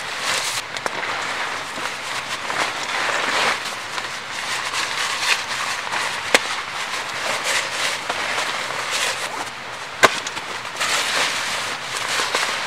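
Nylon fabric rustling and crinkling as gear is stuffed into a rucksack, in uneven patches, with two sharp clicks, one about six seconds in and one about ten seconds in.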